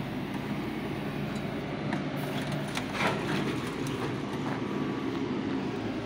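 Heavy diesel engine running steadily at idle, with a few short knocks and clicks about two to three seconds in.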